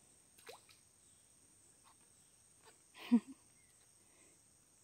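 Faint, steady high-pitched insect trill, like crickets at dusk, with a brief low sound about three seconds in and a few faint ticks.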